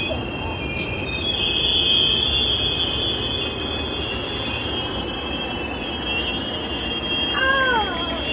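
Passenger train running on the rails, with a steady rumble and a continuous high-pitched wheel squeal over it.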